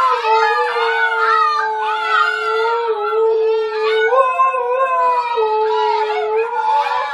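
An adult husky and a litter of husky puppies howling together: several long howls overlap at different pitches, the lowest held steady throughout while higher, wavering voices come and go above it.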